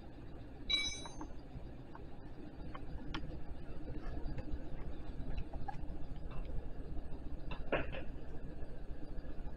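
Scattered metal clicks and clinks of a Harbor Freight C-frame ball joint press being handled and repositioned on a lower control arm, with a short ringing clink about a second in and a louder pair of knocks near the end.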